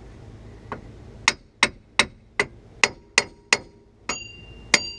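Hammer blows on a stuck steel front wheel bearing hub assembly, about ten sharp strikes roughly three a second. The later strikes ring like metal. The hub is not coming free.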